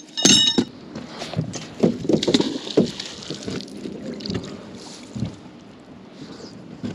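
Handling noises aboard a small boat: a short ringing metal clink right at the start, then irregular knocks and rustling that die down to a quieter, even background after about three seconds.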